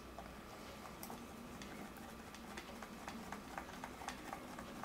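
Faint, irregular light ticks of a small screwdriver turning a screw into the plastic underside of an optical mouse.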